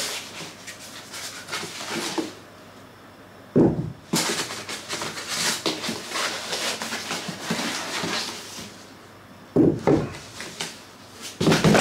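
Cardboard box and packing material rustling and scraping as large prismatic LiFePO4 battery cells are unpacked, with heavy thuds, the loudest sounds, about three and a half and nine and a half seconds in and again near the end as cells are set down on a tile floor.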